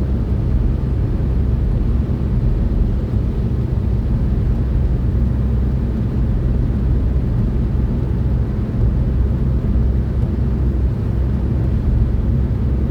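Steady low rumble of a car's engine and tyres, heard inside the cabin while driving at motorway speed.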